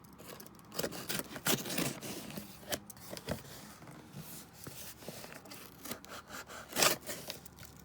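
Cardboard shipping box being opened by hand: irregular scraping, rustling and tearing of packing tape and cardboard, with a sharper, louder scrape near the end.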